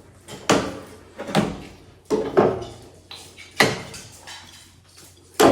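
Woodworking clamps being loosened and taken off a freshly glued table joint: a series of sharp clacks and knocks as the clamps' metal parts hit the wood.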